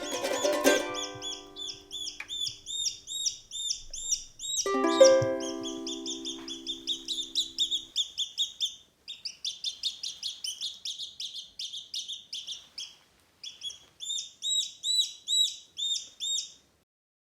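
Silkie chick peeping in quick runs of high chirps, several a second, with short pauses between runs. A strummed chord of background music, ukulele-like, strikes about five seconds in and rings out.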